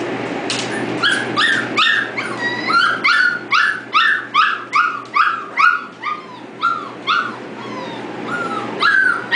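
Five-week-old poodle puppies yipping and whimpering in a quick run of short high calls, about three a second, each falling in pitch, starting about a second in.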